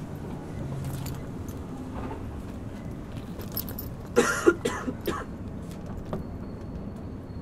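Interior running sound of a chopper-controlled Nagoya Municipal Subway 3000 series train: a steady low rumble from wheels and rails. About four seconds in comes a short burst of sharp clanks and rattles.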